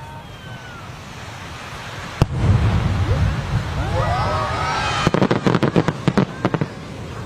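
Aerial shell firework going off: a sharp bang about two seconds in, a rumbling boom after it, then a rapid run of crackles near the end. Voices exclaim over the boom.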